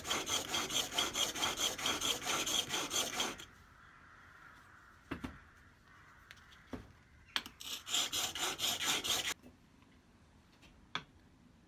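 Spokeshave blade in a honing jig rubbed rapidly back and forth on a sharpening stone, a quick rhythmic scraping; coarse 280-grit work to get the edge square and straight. The strokes stop after about three and a half seconds, a few knocks follow, and a second run of strokes comes about seven seconds in.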